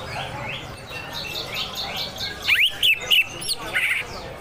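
Greater green leafbird (cucak hijau) singing: a run of quick repeated chattering notes, then a burst of loud, harsh sharp notes a little past halfway. Under it is a steady trickle of running water.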